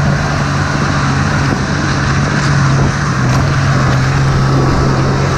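Ski-Doo Tundra snowmobile running at a steady speed: an even engine drone with a constant hiss over it.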